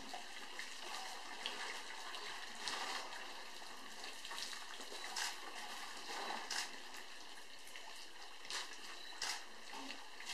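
African bush elephants drinking at a waterhole: water splashing and trickling as trunks dip and lift. Scattered short, sharp splashes or clicks stand out about seven times over a steady hiss.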